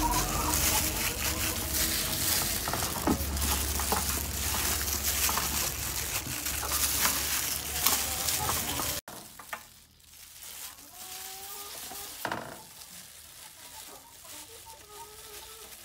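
Plastic-gloved hands rubbing chopped aromatics and chili into a whole fish on a metal tray: a dense crinkling and crackling of the gloves that stops suddenly about nine seconds in. After that it is much quieter, with chickens clucking faintly.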